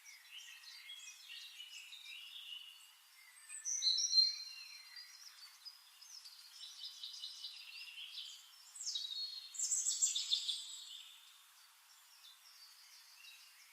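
Birds chirping and singing: a string of high twittering calls and trills, loudest about four seconds in and again from about nine to eleven seconds in.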